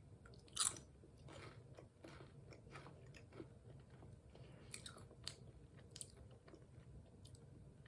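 Faint chewing of crunchy potato chips, with scattered crackly crunches; the loudest comes about half a second in.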